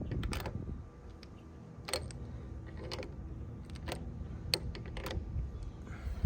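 Scattered light clicks and clinks of motorcycle handlebar risers being handled and threaded by hand onto the springer fork's riser studs, a few sharp taps at irregular intervals.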